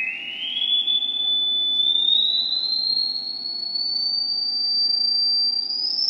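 Sine-wave test tone from an Allen & Heath Qu-32 mixer's signal generator, played through the PA, sounding like a high whistle. Its pitch climbs in small steps as the frequency knob is turned, quickly at first and then more slowly, levelling off near the end.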